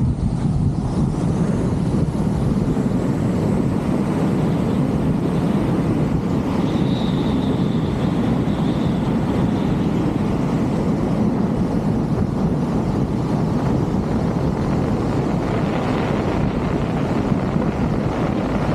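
Steady rush of wind across the camera's microphone from the airflow of a wingsuit in fast flight.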